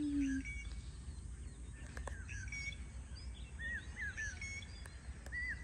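Small birds chirping: a string of short, arched notes, several in quick succession, over a steady low background rumble.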